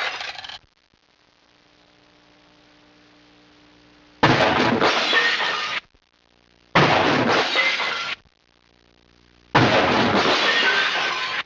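Glass-breaking crash sound effects: three separate smashes a few seconds apart, each starting suddenly and then tinkling off over about a second and a half. The tail of an earlier crash dies away just at the start.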